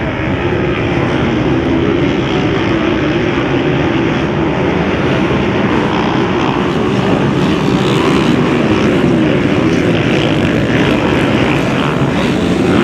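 A pack of motocross bikes racing, many engines revving up and down over one another.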